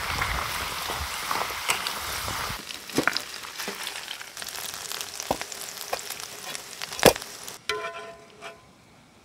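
Food deep-frying in hot oil in a metal pot: a dense crackling sizzle that stops suddenly about two and a half seconds in. Scattered sharp clicks follow, the loudest about seven seconds in, then near the end a few metal clinks of a spoon against a pan with a short ring.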